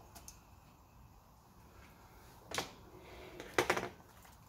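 Handling noise from work on a plastic battery case with a hand tool: one sharp knock about halfway through, then a quick run of clicks near the end.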